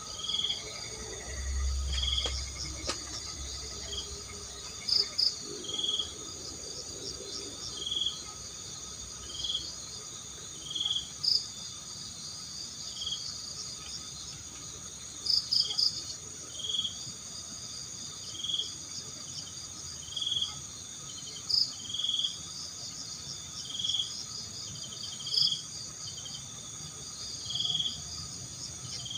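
Night insects in forest: a steady, high-pitched trilling chorus, with short, louder cricket chirps repeating every second or two.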